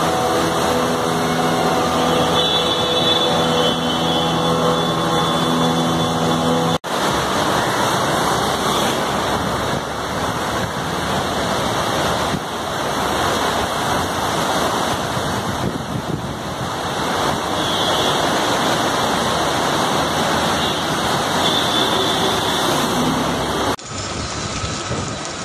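Loud, steady noise of motor traffic and rain on a waterlogged city street. An engine drone with several held tones runs for the first seven seconds, then the sound breaks off and gives way to a dense, even wash. Near the end it cuts abruptly to a thinner, quieter sound.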